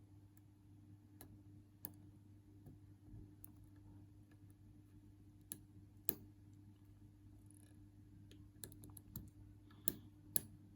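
Irregular small metallic clicks and taps of a lock pick and tension wrench working inside a Union padlock, the louder ones coming in the last few seconds, over a steady low hum.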